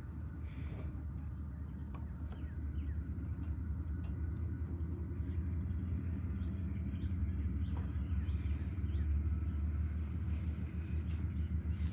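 Diesel locomotives of an approaching train rumbling low in the distance, slowly growing louder.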